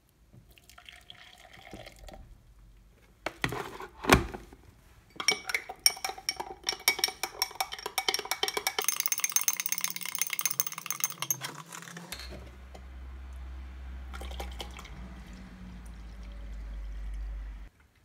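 Hot water poured from an electric kettle into a glass, a couple of sharp knocks, then a metal spoon stirring coffee and clinking rapidly against the glass, which rings. Near the end comes a steady pour of milk from a carton into the glass, stopping abruptly.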